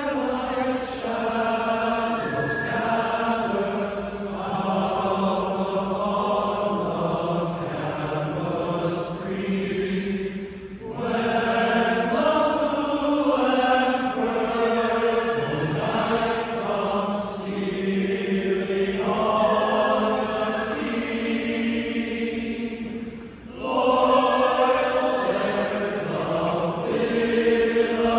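Men's choir singing a college alma mater a cappella, the voices holding long chords, with short breaks between phrases about a third of the way in and again near the end.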